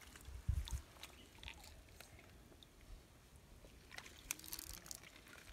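Faint handling noises from a plastic bucket and hand net in shallow river water: scattered small clicks and knocks, with low thumps about half a second in.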